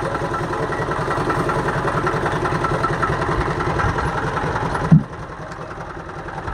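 An engine running steadily with an even low throb. About five seconds in there is a brief loud thump, after which the engine sound is quieter.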